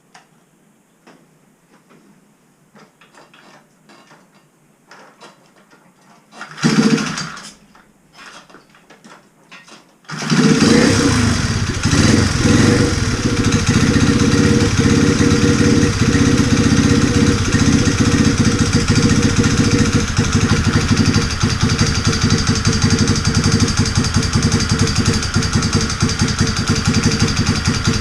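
Honda Jazz motorcycle's small single-cylinder engine being started: after a few faint clicks it fires briefly about seven seconds in and dies, then catches about three seconds later and settles into a steady idle. The owner is uneasy about its sound and suspects an abnormal engine noise.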